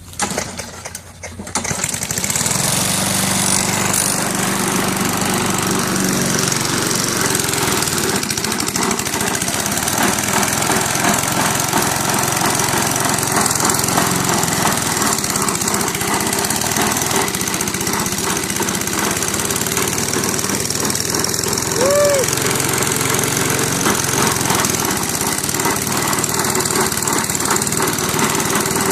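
Honda lawnmower engine starting up in the first second or two, then running loud and steady with a rapid rattling knock; the owner says the engine is dying.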